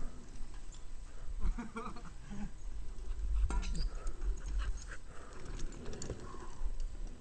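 A dog making a few short vocal sounds, over a steady low rumble.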